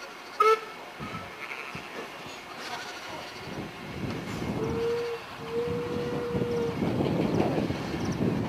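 A heritage railway train approaching, its running noise building louder toward the end, with two whistle blasts around the middle, a short one then a longer one. A brief loud sound comes about half a second in.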